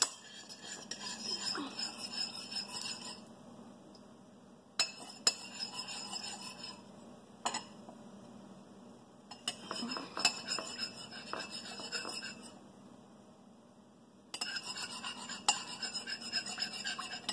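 Spoon stirring a liquid mixture of coffee, oil and garlic in a bowl, scraping and clinking against the bowl in four bouts of a few seconds each, with short quieter gaps and a few sharp clinks between them.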